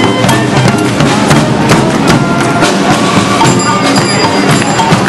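Street brass band marching and playing: sousaphone and horns over a steady drumbeat of about three or four hits a second.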